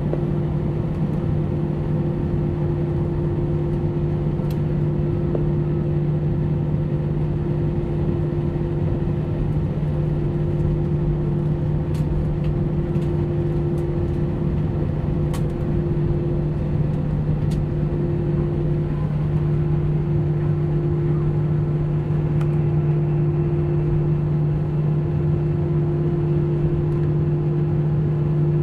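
Cabin noise of a jet airliner taxiing: the engines' steady idle hum, a low drone with a fainter higher tone over it, and a low rumble from rolling along the taxiway. A few faint ticks come and go.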